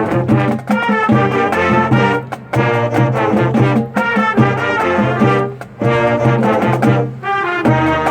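Honors school band playing, with brass to the fore over a strong low bass line, in phrases broken by brief pauses.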